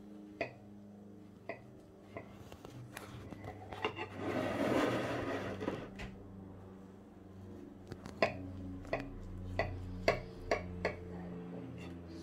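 Large kitchen knife cutting through a cream cake and knocking against the ceramic plate: a few light clicks, a scraping stretch of about two seconds around the middle, then about six sharp clinks near the end as the slice is worked out.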